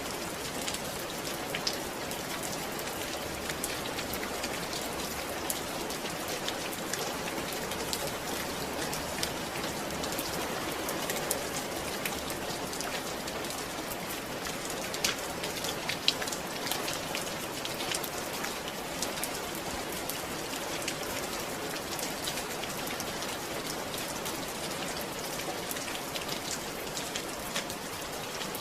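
Steady rain falling, individual drops pattering on a surface.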